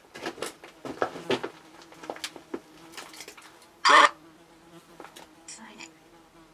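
Spirit box (radio-sweep ghost-hunting app) running: a steady buzz under a run of choppy clicks and snippets of static, with one louder burst about four seconds in.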